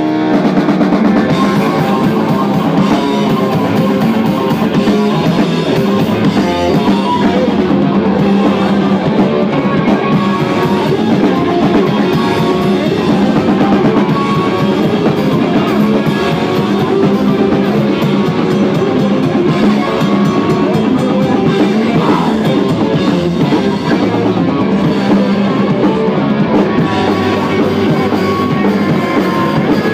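Live rock band playing loud and without a break: a drum kit pounding under electric guitar.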